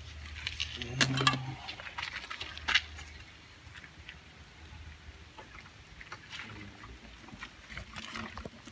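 Faint handling noises: rustling and light clicks as a rubber handlebar grip, slicked with hairspray, is pushed and twisted onto the motorcycle's handlebar. A short louder knock comes about a second in.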